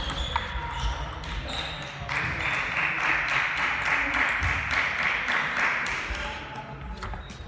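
Celluloid-free plastic table tennis balls ticking off bats and tables, quick sharp pings from this rally and neighbouring tables, with a few seconds of rushing noise swelling in the middle and voices in the background.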